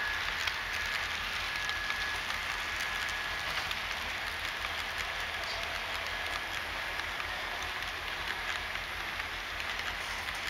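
HO scale model freight cars rolling along the track close by: a steady rolling hiss of small metal wheels on rail, with many small irregular clicks. A faint high steady tone fades out about two seconds in.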